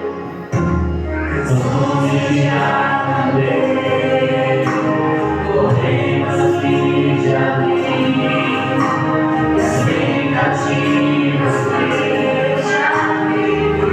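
Christian worship music: a choir singing held notes over instrumental backing, the bass note changing about every four seconds.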